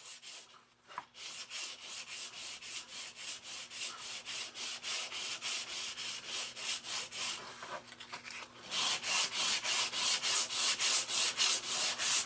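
120-grit sandpaper rubbed by hand back and forth over a small wooden bat, about three quick strokes a second. The strokes pause briefly about two-thirds of the way through, then resume louder, over a faint steady hum.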